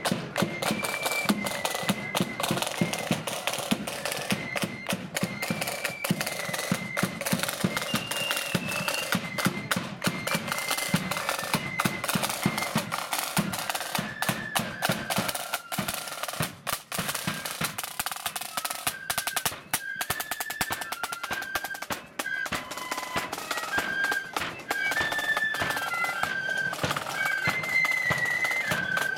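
Marching flute band playing: rapid snare drum rolls and bass drum beats under a high flute melody. The flute tune stands out more in the second half.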